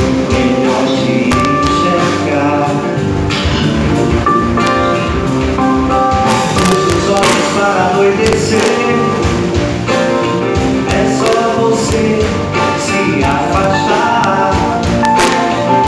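A live band playing a song: a man sings into the microphone over acoustic guitar, electric bass and keyboard, with a steady beat.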